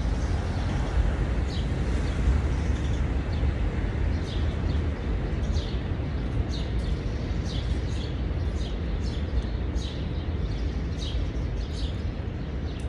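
Outdoor street ambience: a steady low rumble of traffic, with small birds chirping in short high notes over and over, more often from about four seconds in.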